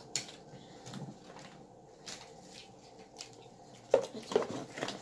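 Eating at a table: chewing, with small clicks and rustles of nuggets, sauce cups and cardboard boxes being handled, and a louder cluster of knocks and rustles about four seconds in.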